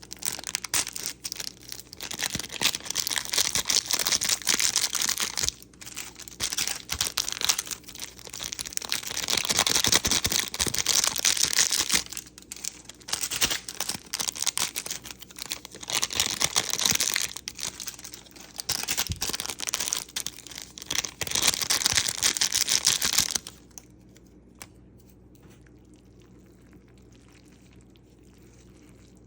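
Packaging being crinkled and rustled in irregular bursts, as when a snack wrapper or bag is torn open and handled. It stops abruptly about 23 seconds in.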